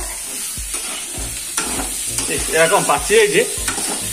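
Sliced bitter gourd sizzling as it fries in a steel kadai, with a spatula stirring and knocking against the pan. A short voice-like sound is heard a little past halfway.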